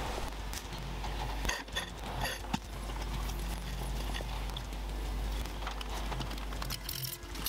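Carved wooden lamp parts being handled and fitted together on a workbench: a few sharp knocks and clinks about one and a half to two and a half seconds in, over a steady low hum.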